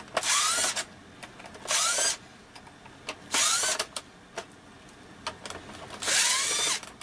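Cordless drill-driver with a T-15 Torx bit backing small screws out of a plastic instrument-cluster cover: four short whirring runs, each rising in pitch as the motor spins up, with small clicks between them.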